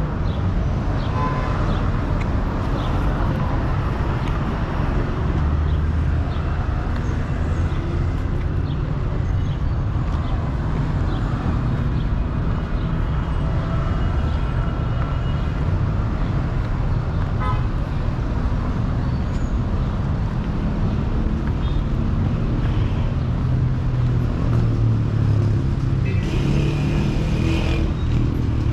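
City street traffic: a steady rumble of cars driving past on a boulevard, with a few short car-horn toots here and there.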